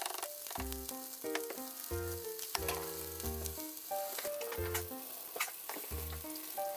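Bite-sized chicken breast pieces sizzling in a frying pan, with sharp pops and clicks through the hiss. Chopsticks stir in a small metal bowl near the end. A light background melody with a bass line plays throughout.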